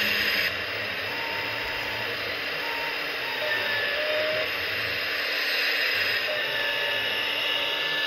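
Hydraulics of an RC scale Liebherr 926 crawler excavator working as the arm and bucket dig: a steady mechanical whir with brief whining tones that come and go, over steady background noise.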